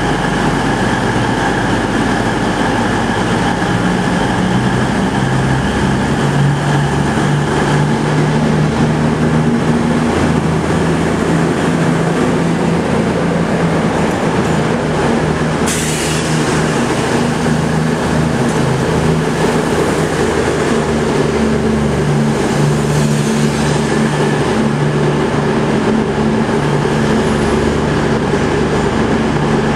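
CrossCountry Voyager diesel multiple unit departing, its underfloor Cummins diesel engines running under power as the carriages pass, with a steady loud drone. The engine note changes about five seconds in, and there is a sharp click about halfway through.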